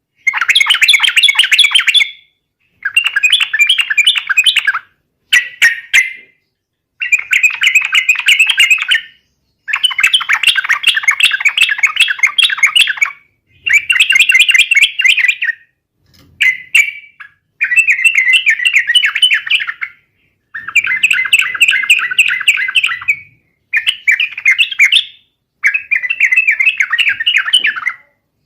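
Yellow-vented bulbul (trucukan) singing in a long series of rapid, bubbling, chattering phrases, each one to three seconds long with short pauses between them. This is the loud 'gacor' fighting-style song used to provoke a rival bulbul into answering.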